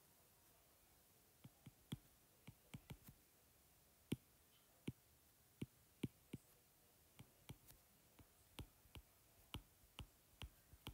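A stylus tip tapping and clicking on a tablet's glass screen while handwriting: a string of faint, sharp, irregular ticks, about two a second, starting about a second and a half in.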